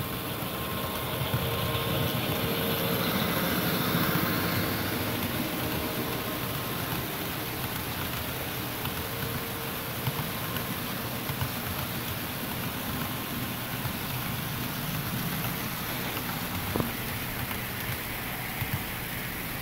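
Model California Zephyr passenger train running at track speed on a layout, a steady rumble of wheels and motor that swells as it approaches a few seconds in, then settles as the cars roll past, with a few short clicks in the second half.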